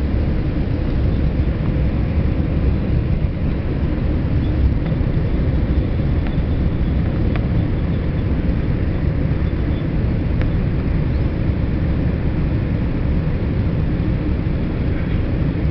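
Steady rumble and rush of a Boeing 787-8's engines and airflow heard inside the cabin, with a few faint ticks.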